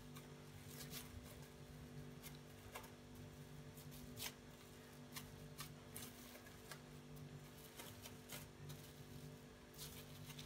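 Faint crinkling of a thin plastic sheet as hands press and roll raw kibbeh inside it: scattered soft crackles over a low steady hum.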